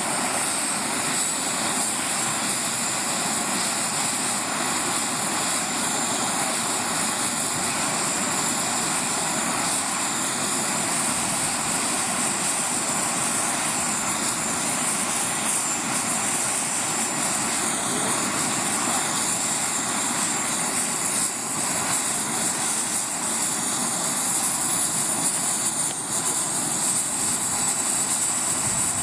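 Radio-controlled scale model helicopter flying, its motor and rotors running steadily, with a thin high whine that slides lower over the last several seconds.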